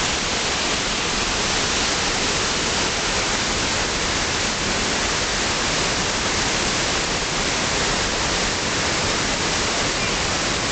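A waterfall pouring: a steady, even rush of falling water.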